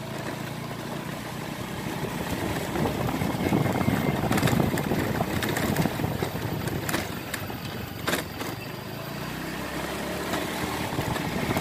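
Motorcycle engine running while being ridden slowly, with road and wind noise; it gets louder near the middle, then settles, with a few sharp knocks along the way.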